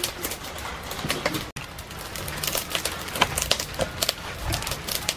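Scattered light clicks and knocks of food preparation: a stainless steel bowl handled and raw pork ears moved about in it. The sound breaks off briefly about a second and a half in.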